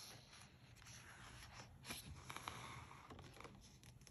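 Faint rustle and scrape of a picture-book page being turned by hand, with a few light clicks in the middle.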